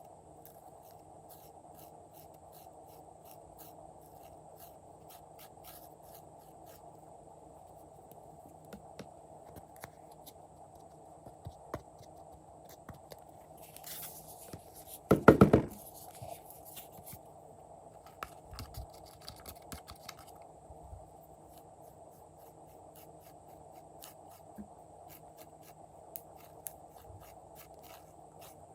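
Close handling sounds: scattered small clicks and scratches over a steady low hum, with a brief loud crackling rustle about fifteen seconds in.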